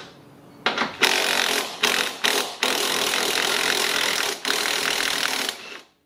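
Small impact wrench hammering loose an engine mount bolt. It starts with a few short trigger pulls, then runs steadily for about three seconds and stops near the end.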